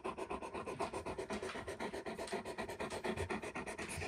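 A Great Pyrenees panting fast and evenly with its open mouth right at the microphone.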